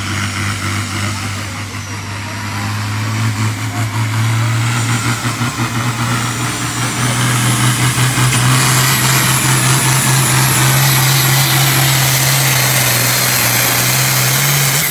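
Diesel engine of an International Harvester pulling tractor running flat out under load as it drags a weight-transfer sled, its steady drone climbing slowly in pitch and growing louder as it comes down the track, with a high whistle rising above it.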